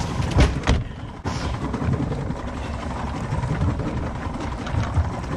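Steady low rumble of a fishing boat's engine running under way, mixed with wind noise, and two sharp knocks on the deck about half a second in.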